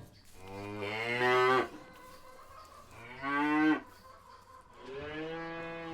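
Cow mooing three times: one long call, a shorter louder one, then another long one.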